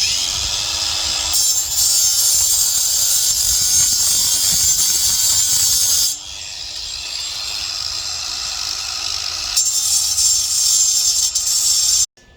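A metalworking power tool working steel with a loud, steady, harsh hiss. It eases off about halfway through, comes back up near the end and then cuts off abruptly.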